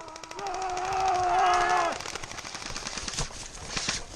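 Airsoft guns firing in rapid strings of sharp clicks during a charge, with a person's long held yell over the first two seconds that stops suddenly.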